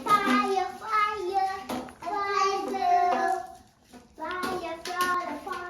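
A young child singing in a high voice, two sung phrases with held notes and a short pause between them.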